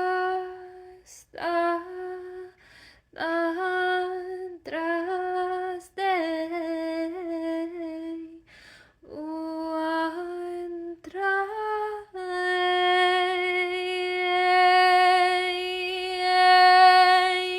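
A woman singing alone, without accompaniment, in short phrases that hover around one pitch, each rising into the note at its start. In the last third she holds one long sustained tone.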